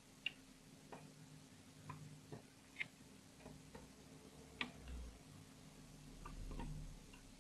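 Faint, irregular clicks of a metal hook against the plastic pegs of a rubber-band loom as rubber bands are lifted and looped over, about one or two a second, with a couple of soft low bumps as the loom is handled.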